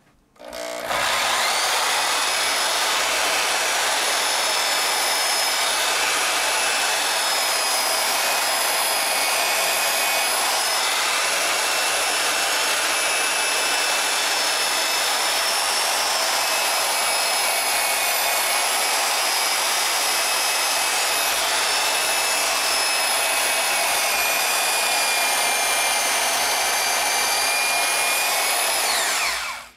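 Milwaukee portable band saw running and cutting through quarter-inch aluminum with a fine-pitch blade of about 18 teeth per inch: a steady motor whine and cutting hiss with several high tones, starting about a second in and stopping just before the end. The cut goes slowly, but the blade is not clogging.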